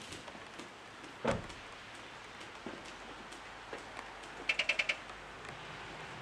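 The driver's door of a Mitsubishi Lancer X slams shut with a single thud about a second in. A few seconds later comes a quick run of about six high beeps from inside the car, with faint ticks of light rain dripping throughout.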